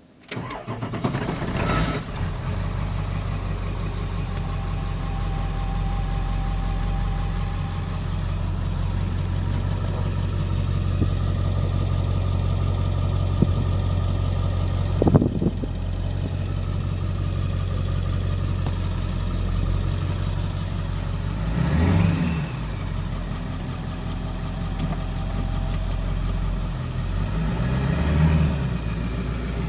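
A 2001 Ford F-350's 7.3L Power Stroke V8 turbodiesel, straight-piped with the muffler and catalytic converter removed, starts up suddenly right at the beginning and settles into a steady idle. There are two brief swells in the engine sound later on, and a single sharp clack about halfway through.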